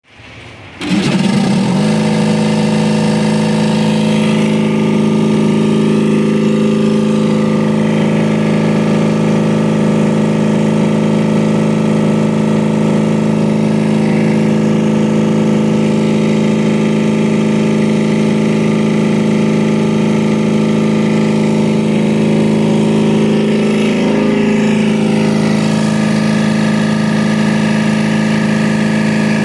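Belt-driven Carrier 5H60 six-cylinder open-drive reciprocating refrigeration compressor starting up about a second in, then running steadily with an even mechanical hum on a no-load test after reconditioning.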